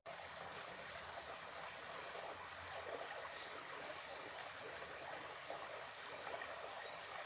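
Small mountain stream running among rocks: a faint, even rush of water.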